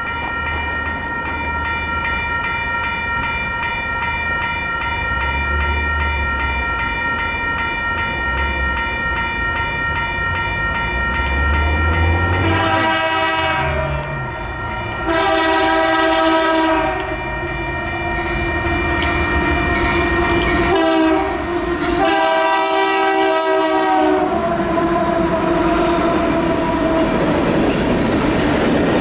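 Union Pacific diesel locomotive's air horn sounding the grade-crossing signal as the train comes through: two long blasts, a short one and a final long one, about halfway in. The low rumble of the locomotive and the rolling noise of the train's wheels on the rails run underneath.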